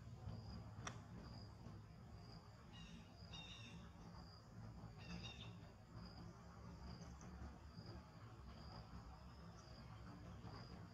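Faint background of insects chirping: a high, thin pulse repeating about every half second, with two brief bursts of chirping calls about three and five seconds in.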